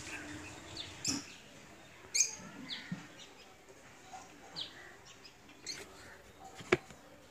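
Birds chirping in short scattered calls, with a couple of short sharp knocks, one about a second in and one near the end.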